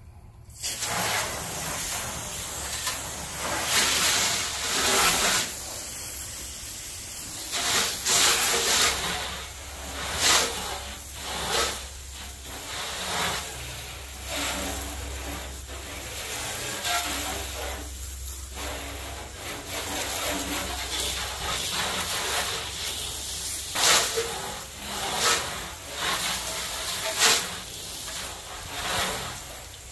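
Water spray hissing against a pickup truck's body, starting abruptly about half a second in and surging and easing as the spray moves across the panels.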